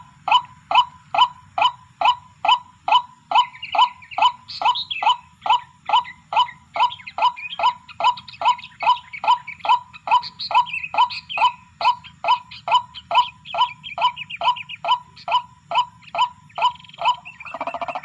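White-breasted waterhen (ruak-ruak) calling, a steady run of short falling 'kwak' notes about two to three a second. Higher chattering calls overlap from a few seconds in.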